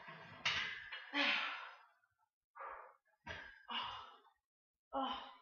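A man grunting and blowing out hard breaths in several short bursts, straining to press a barbell on a bench.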